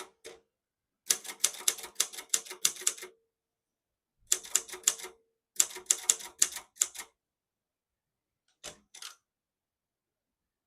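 Silver-Reed Silverette portable typewriter being typed on: three quick runs of key strikes, a dozen or so sharp clacks each, with short pauses between them, then a couple of softer clicks near the end.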